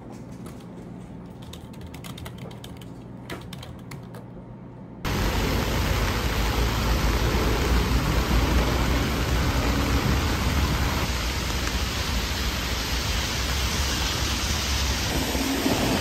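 Typing on a computer keyboard, a light patter of key clicks, for about five seconds. Then, after a sudden cut, heavy rain on a city street: a loud, steady hiss with a low rumble underneath.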